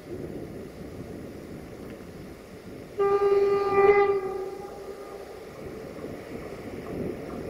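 Horn of a 060-EA (LE5100) electric locomotive hauling a freight train: one blast of about a second on a single steady note, about three seconds in, trailing off in an echo. Under it, the low rumble of the approaching train.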